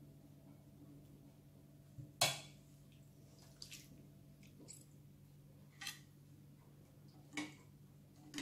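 Metal serving spoons clinking and scraping against ceramic plates and bowls as food is dished out: half a dozen separate short clinks, the loudest about two seconds in, over a faint steady hum.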